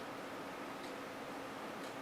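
Steady hiss of room tone with a faint hum, and two faint clicks about a second apart.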